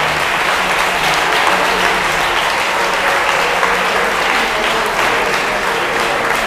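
Audience applauding steadily, the dense, even clatter of many hands clapping at once.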